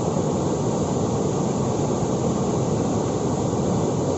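Floodwater pouring over a small concrete checkdam and churning in the pool below: a steady, heavy rush of water.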